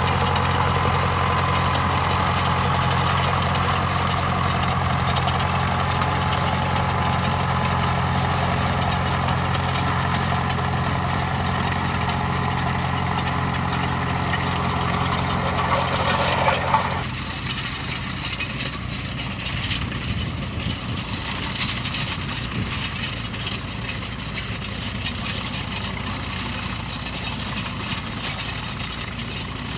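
Fordson Major half-track tractor's engine running steadily as it pulls a plough. A little over halfway through, the sound cuts abruptly to a quieter tractor engine with more hiss.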